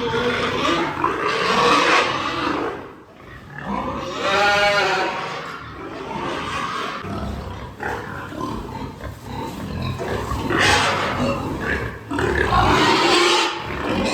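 Pigs squealing and grunting at feeding time, in repeated loud, rough bursts, with one high, pitched squeal about four seconds in.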